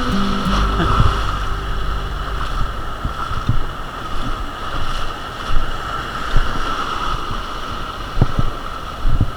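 Boat under way: a steady engine drone with a constant whine, wind and water noise, and a few short thumps.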